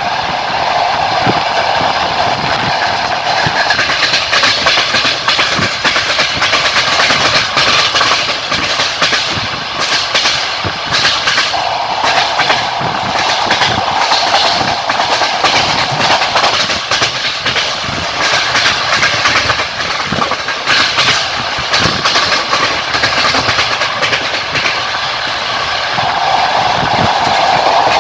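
Passenger train wheels running over the rails, heard on board a moving train: steady rolling noise with rapid clickety-clack beats from the rail joints. A hum swells in and out a few seconds at a time.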